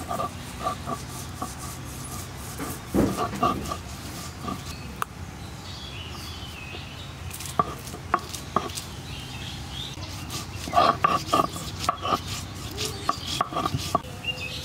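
Irregular clicks, knocks and scraping of kitchen utensils being handled, coming in clusters.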